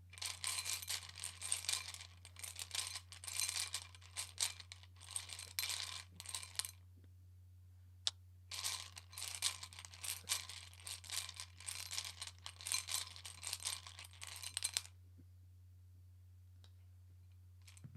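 Dense clicking and rattling of small hard objects being shuffled by hand, in two long spells of about six to seven seconds each, with a lone click between them.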